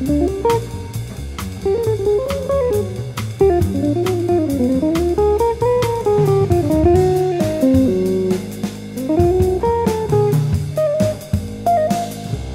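Jazz quartet recording: a guitar plays a flowing melodic line that rises and falls over bass and a drum kit keeping a steady beat.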